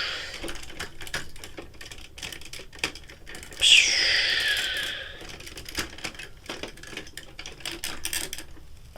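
Hard plastic toy robot parts clicking and rattling as they are handled and the articulated joints are moved, in quick irregular clicks. About three and a half seconds in, a hissing sound falls in pitch over a second and a half and is the loudest thing heard.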